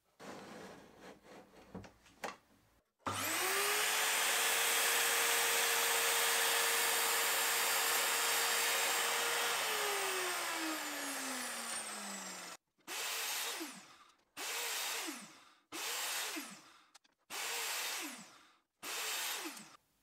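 Pencil scratching a mark on wood for a few seconds, then an Evolution mitre saw's motor spins up to a steady high whine, runs for about six seconds cutting a small wooden strip, and winds down with a falling whine. Five short runs of the saw follow, about a second each, the whine falling each time the motor winds down.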